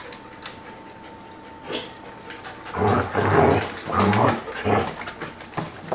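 Dog growling: a short run of low, rough growls starting about three seconds in, a warning growl at a husky puppy that keeps climbing on it.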